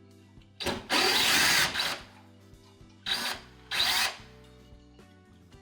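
Power drill-driver backing out Phillips screws from the magnetron's thermostat mount: one run of about a second and a half, then two short bursts.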